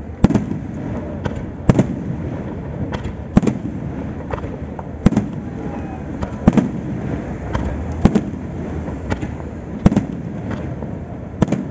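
Aerial firework shells bursting in a steady sequence: about eight loud bangs, one every one and a half to two seconds, with smaller pops and a low rumble between them.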